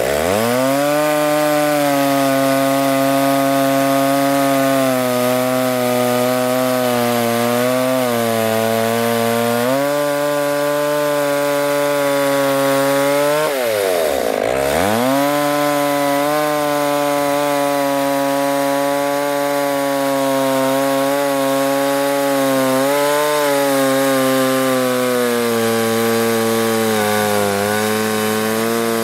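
McCulloch Pro Mac 655 two-stroke chainsaw running at high revs under load, ripping a cedar log lengthwise in a chainsaw mill. The engine note holds fairly steady with small wavers. Right at the start and again about halfway through, it drops sharply and climbs back up.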